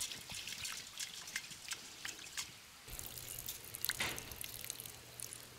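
Rice being swished and rubbed by hand in water in a stainless steel pot, with small wet splashes and clicks. After about three seconds the rinse water is poured out of the pot onto the ground in a faint trickle.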